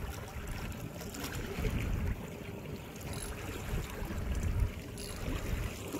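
Water washing against the side of a boat under way at trolling speed, with low, uneven rumbles.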